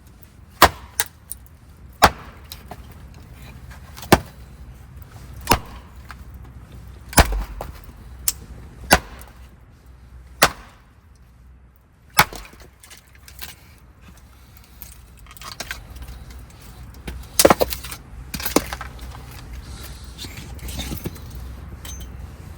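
A series of sharp knocks, like strikes on wood, coming about every one to two seconds with a pause in the middle, over a low steady background.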